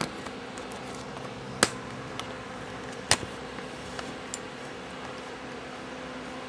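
Handling noise: a few sharp, isolated clicks and taps, two of them louder, over a steady low room hum.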